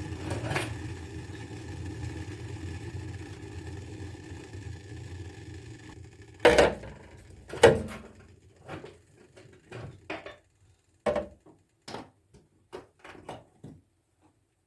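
A steady mechanical hum for about six seconds, then a run of knocks and clatters as household items and containers are handled and set down, the two loudest about six and a half and seven and a half seconds in, followed by lighter taps.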